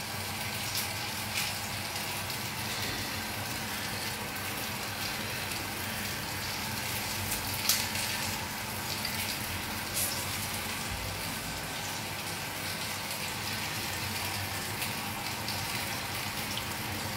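Orange sauce sizzling steadily in a frying pan while fresh orange juice is squeezed into it, with a few light clicks, about two of them near the middle.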